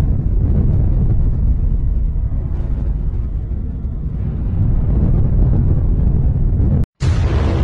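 Deep, continuous rumble of a nuclear explosion, loud and low. It cuts off abruptly near the end, and ominous music begins.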